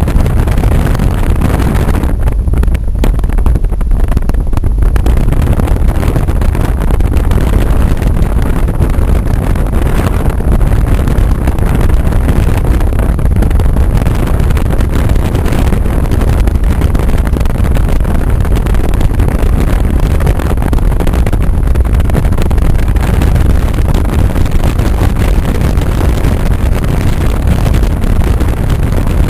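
Steady, loud rumble of a car driving, road and engine noise heard from inside the moving car.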